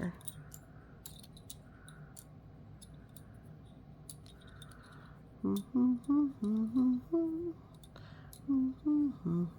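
Light scattered clicks of small game pieces being set in place, then a woman humming a short tune in separate notes from about five and a half seconds in.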